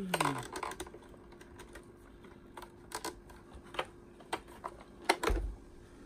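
Scattered light clicks and taps of hard plastic as the Hoover Junior U1012 vacuum cleaner's hood, its bumper just fitted, is handled, with a louder knock and soft thump a little after five seconds as it is set down on a towel.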